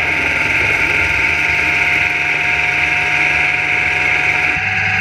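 CNC-converted Maktek Tytan 500 lathe turning EN AW 2007 aluminium at 1400 rpm under flood coolant. A steady hiss of cutting and coolant spray runs under a low machine hum and a couple of steady tones.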